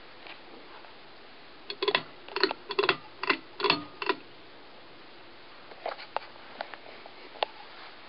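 Fanimation Edgewood ceiling fan running with a steady faint whir. A burst of sharp, irregular clicks and knocks comes about two to four seconds in, and a few more near the end.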